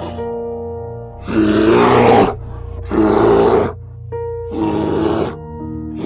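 Brown bear growling in a series of loud roars, each about a second long, over background music with sustained notes.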